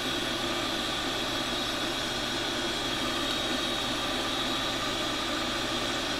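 Kent/Jet/Acer vertical milling machine running steadily: the motor and belt-driven head hum evenly, with a steady high-pitched whine.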